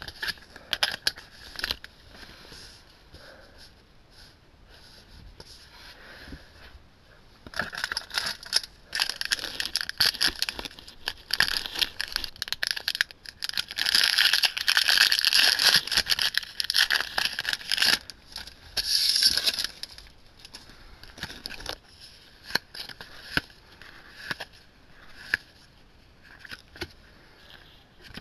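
Foil Yu-Gi-Oh! booster pack wrappers crinkling and tearing open as they are handled. The crackling thickens about a third of the way in and is loudest just past the middle, then gives way to scattered light snaps of cards being handled.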